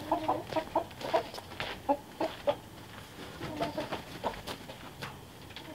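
Chickens clucking in short calls, several in quick succession and then a few more a little later, with scattered light knocks.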